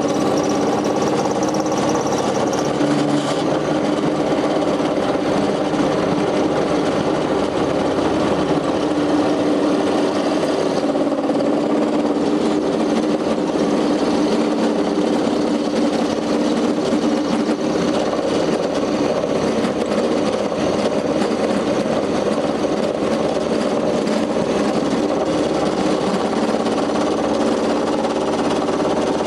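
Homemade milling machine driven by a treadmill motor, running steadily with its end mill cutting metal stock held in the vise: a continuous motor hum under a rough, grinding cutting noise.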